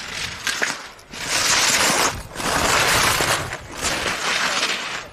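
Slalom skis carving through snow, a scraping hiss of the edges that swells loud with each of three turns.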